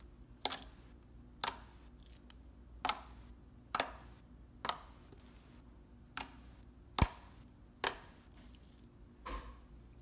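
Clear glue-based caramel slime being played with by hand, giving sharp clicks and pops at uneven intervals, about one a second.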